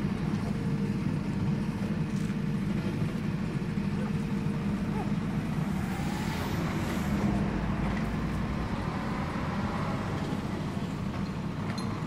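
Steady low rumble of a truck engine running, with traffic noise, swelling briefly about six to seven seconds in.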